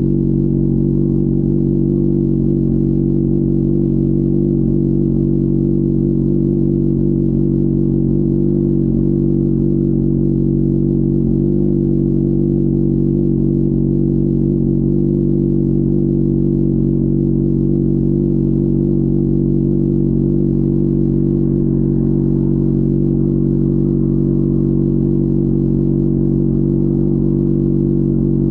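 Honda CBR600RR's inline-four engine running at a steady, unchanging engine speed, its pitch holding level throughout.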